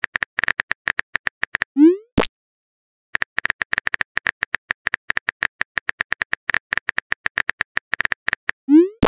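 Rapid, irregular clicks of a phone keyboard typing sound effect, broken twice by a short rising 'bloop' message-pop, about two seconds in and again at the end, as new chat messages appear.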